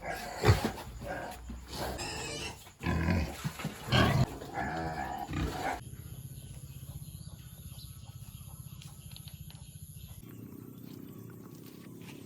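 Pigs grunting and squealing loudly in irregular bursts, then about six seconds in a switch to a steady, rapid mechanical buzz.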